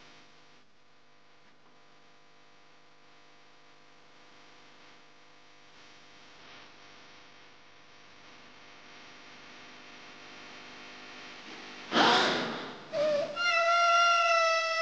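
Quiet background music from a TikTok soundtrack, with soft held tones. About twelve seconds in comes a loud breathy burst, then a loud, high, long-held wailing cry that drops in pitch as it ends.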